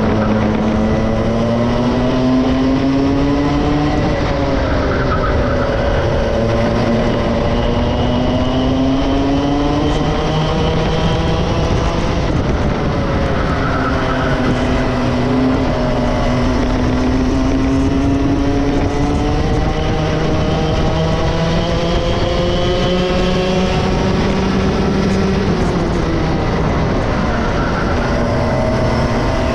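Two-stroke racing kart engine at race pace. Its pitch climbs steadily for several seconds at a time as it accelerates, then drops quickly as it comes off the throttle for corners; this happens three times.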